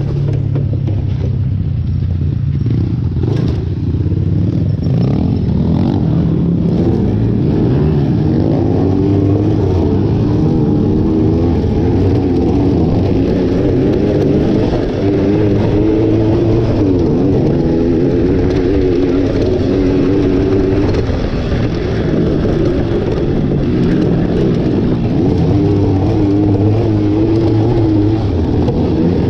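Motorcycle engine running under way at a fairly steady speed, its note wavering slightly up and down, over continuous road noise.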